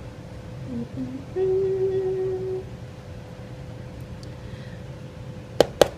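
A woman humming: a couple of short notes, then one held note of about a second. Near the end come two sharp taps, a plastic blender cup knocked against a bowl to shake out ground flaxseed mix.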